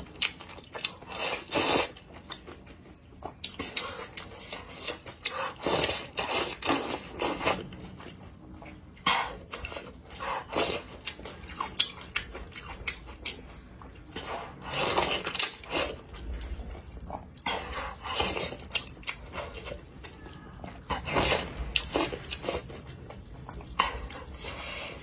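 Close-miked slurping and chewing of handmade wide noodles in a spicy broth, in irregular loud bursts.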